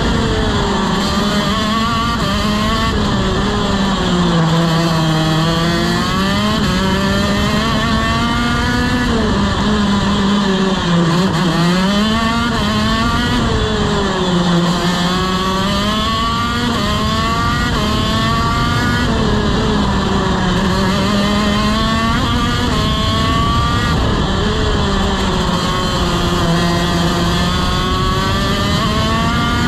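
TM KZ-R1 125cc two-stroke shifter kart engine at race pace, its pitch climbing as the kart accelerates and dropping as it slows for corners, over and over.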